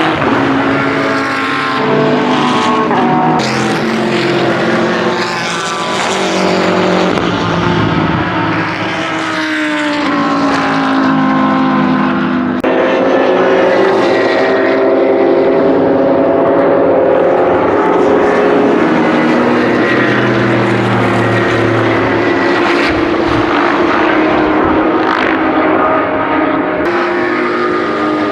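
BMW M6 GT3's twin-turbo V8 racing engine under load on track, its pitch climbing and falling with throttle and gear changes, with a sudden change in pitch about twelve seconds in.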